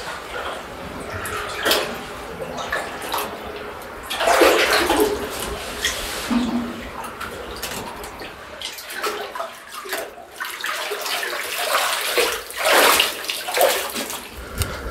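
Water splashing and sloshing in irregular surges as a person wades through shallow cave water, loudest in two stretches around the middle and near the end.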